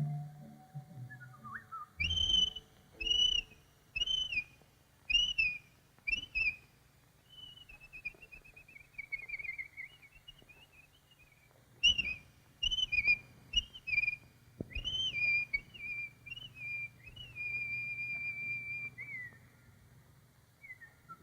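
Whistled bird calls from a cartoon soundtrack. There are five short swooping notes about a second apart, then a wavering whistle that slides slowly downward, then another quick run of notes that ends in a long held note.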